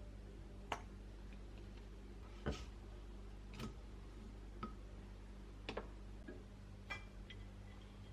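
Kitchen utensils clicking and tapping, a light tap about once a second, over a steady low hum.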